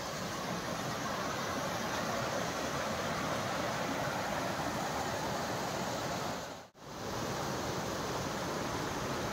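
Mountain stream flowing over rocks: a steady rush of water, broken once by a brief drop-out about two-thirds of the way through.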